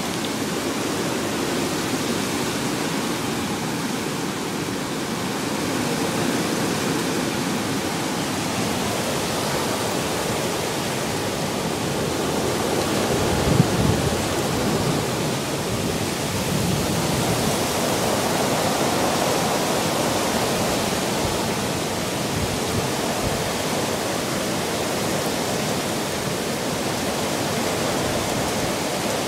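Heavy rain pouring down in a steady rushing hiss, with a brief louder low rumble about 13 seconds in.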